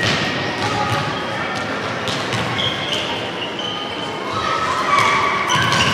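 Youth football match: a ball being kicked and bouncing with sharp thuds amid players' and spectators' shouts, the shouting growing louder about two-thirds of the way in.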